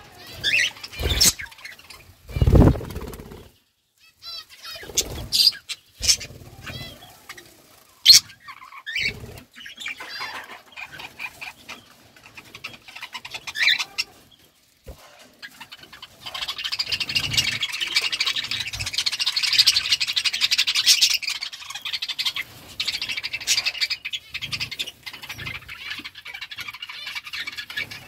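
Budgerigars chirping. At first there are scattered single chirps and sharp clicks, with a loud thump about two and a half seconds in. From a little past halfway, several birds break into continuous dense warbling chatter.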